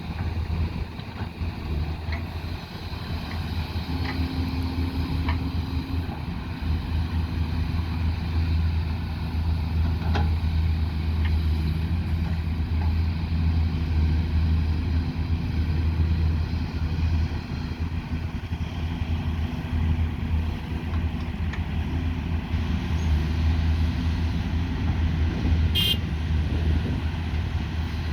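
Excavator's diesel engine running steadily with a low hum, with a few light clicks and knocks and a short high-pitched tone near the end.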